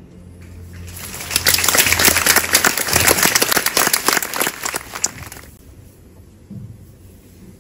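Concert audience applauding: the clapping breaks out about a second in and dies away after about four seconds.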